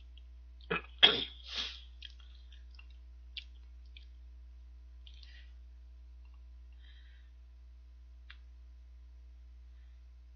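A man sneezes once, sharply, about a second in, then only faint clicks of wooden chopsticks against a dish.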